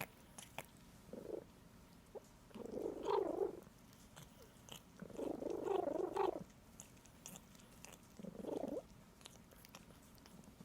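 A pet making funny vocal noises while licking: four separate noises, the second and third about a second long and the loudest, with faint wet licking clicks in between.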